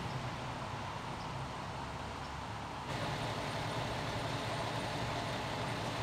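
Fire truck engine running steadily, a low rumble with a steady hum; the sound brightens abruptly about three seconds in.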